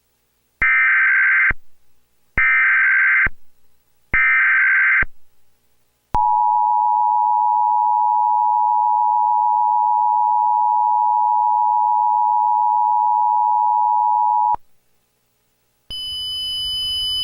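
Emergency Alert System SAME header: three short bursts of warbling data tones, about a second each. Then the EAS two-tone attention signal holds steady for about eight seconds and cuts off, opening a child abduction alert. A high steady tone starts near the end.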